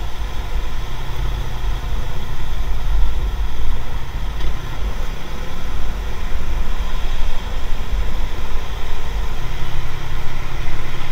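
Wind buffeting an action camera's built-in microphone while riding in traffic, a heavy low rumble that rises and falls, mixed with engine and road noise.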